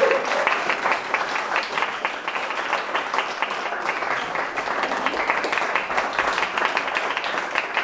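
A small seated audience applauding, steady clapping throughout.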